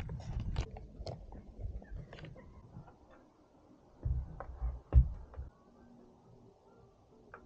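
Light clicks and knocks of plastic motorcycle parts being handled: the orange headlight mask and a clear windshield. A single sharper, louder knock comes about five seconds in.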